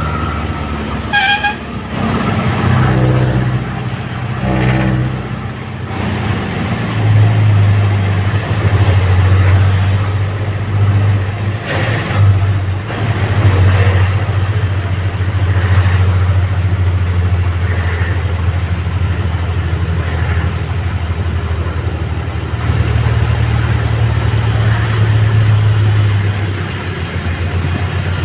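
A motor vehicle engine running steadily with a low hum, and a short horn toot about a second in.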